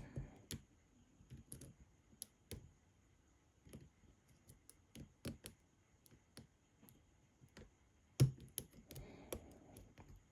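Lock pick and tension tool working a pin-tumbler lock: scattered light metallic clicks and taps as the pins are lifted and set, with one louder click about eight seconds in.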